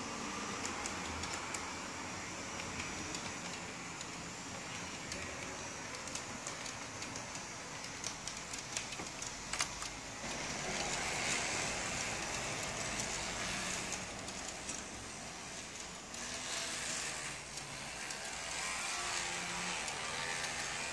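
Model tram running along its track: the small electric motor and wheels give a steady running noise, with a few short clicks about halfway through.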